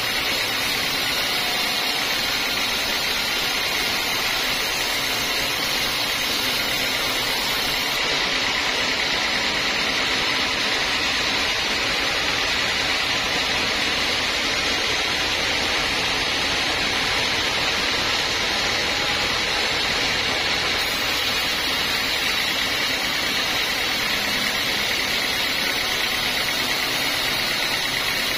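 Band sawmill running, its blade ripping along a thick teak slab: a steady, high-pitched noise that keeps an even level throughout.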